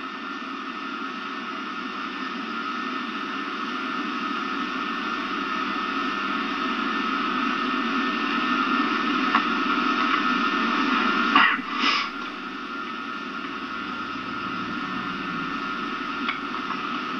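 Steady hiss and hum of an old videotape soundtrack, slowly growing louder, with no clear sound of the scene in it. A short knock-like rustle comes about eleven and a half seconds in.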